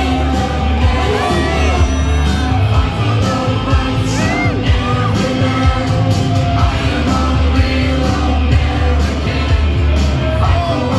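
Loud music with singing, with people yelling and whooping over it.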